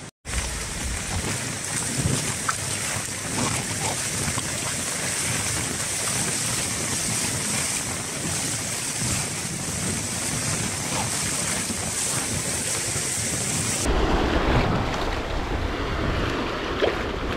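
Small waves washing and foaming over a sandy shore, with wind rushing on the microphone. About fourteen seconds in the sound changes abruptly to a deeper, fuller rush of water.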